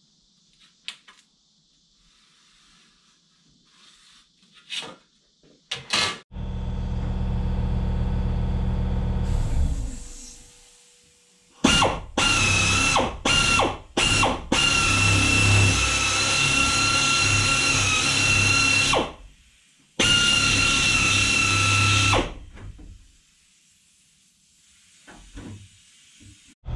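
Handheld electric power shears cutting sheet metal: a few short starts, then two long runs with a steady high motor whine. Before that, a lower motor hum runs for a few seconds.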